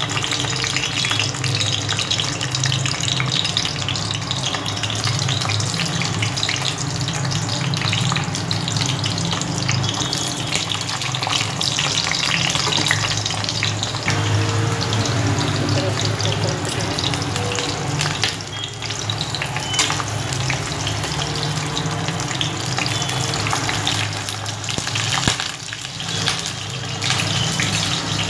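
Stuffed green bell peppers shallow-frying in a little hot oil in a kadhai, the oil sizzling with steady, dense crackling.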